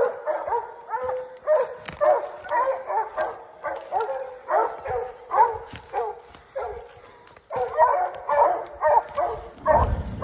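Bear hounds barking treed: quick, repeated bawling chop barks, two or three a second and overlapping, the bark that tells the hunter the bear is up a tree. A low rumble comes in near the end.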